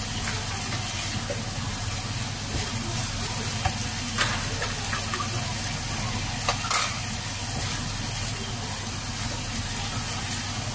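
Ground chili, garlic and shallot spice paste frying in oil in a wok, stirred with a silicone spatula: a steady sizzle with a few short scrapes of the spatula.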